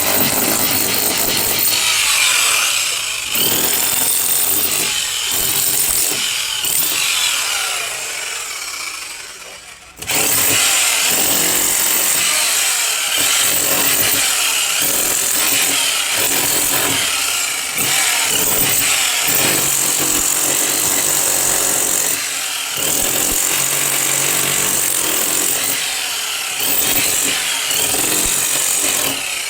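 A power tool running loudly with a shifting whine, starting and stopping in short spells, in two edited stretches with a sudden cut between them about ten seconds in.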